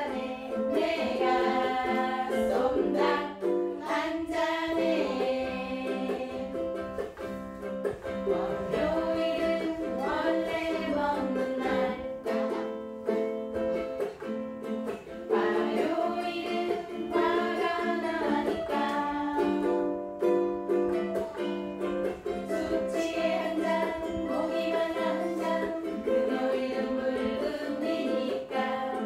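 Ukulele ensemble of four strumming the song together in rhythm, with women's voices singing along.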